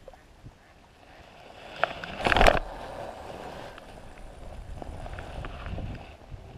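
A spinning rod being cast: a sharp swish about two seconds in, followed by rustling and handling noise.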